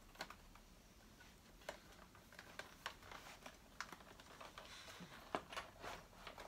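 Faint, irregular plastic clicks and knocks as hands fiddle with the base of a Dyson DC07 upright vacuum, trying to release the filter cover at the bottom.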